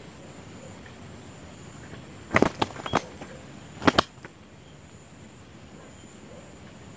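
Spotted dove's wings flapping and clapping as it springs up off the ground: a quick cluster of sharp wing claps, then another pair about a second later.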